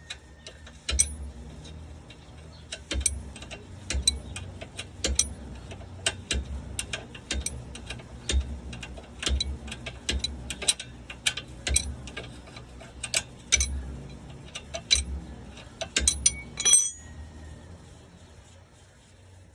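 Sharp metallic clicks and clinks from hand tools, irregularly about one or two a second, each with a brief high ring, and a quick cluster of clicks near the end.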